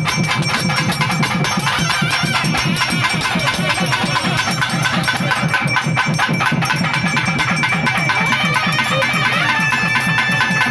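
Festival temple drumming: fast, even drum strokes at about five a second, with a steady high tone held above them.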